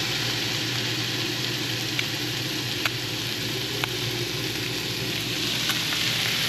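Panko-breaded mullet fillets sizzling steadily as they pan-fry in hot oil, with a few sharp pops of fat spitting.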